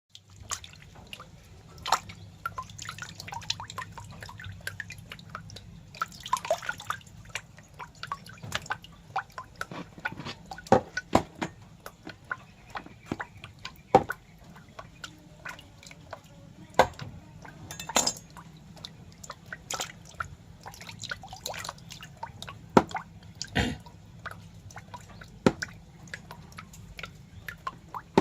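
Irregular wet clicks and drips, a few sharp ones standing out, over a faint steady low hum.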